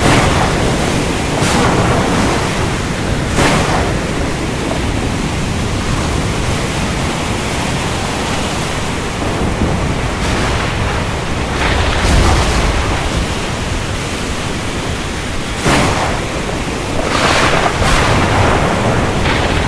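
Heavy storm: steady, loud rain and wind, with about half a dozen sudden cracks of thunder scattered through it and a deeper rumble about two-thirds of the way through.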